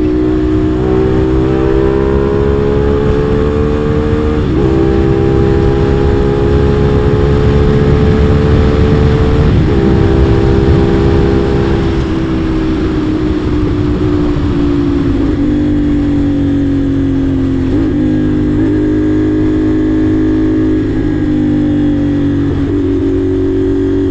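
CFMOTO 450SR's parallel-twin engine with a 270-degree crank running at speed, with wind rush. The engine note climbs slowly and breaks briefly a few times, falls away after about twelve seconds, and steps back up in pitch near the end.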